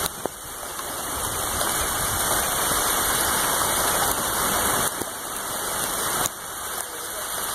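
Strong wind rushing over the phone's microphone in gusts, with a low rumble; it drops off suddenly a few times and builds again.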